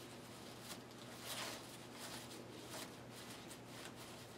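Faint rustling of a satin ribbon being worked by hand through jute warp strings, with a few soft handling ticks and a slightly louder rustle about a second and a half in, over a low steady hum.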